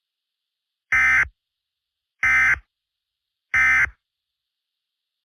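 Three short bursts of Emergency Alert System digital data tones, a raspy warbling buzz, evenly spaced a little over a second apart. Coming right after the closing line of a broadcast message, these are the SAME end-of-message bursts that sign off an EAS alert.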